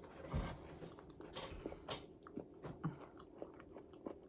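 A bite into a breaded fried pickle, a crunch about half a second in, then chewing with scattered crackles of the crisp breading.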